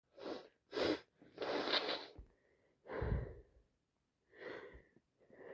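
A woman sniffing and breathing noisily through a runny nose, five times with short gaps.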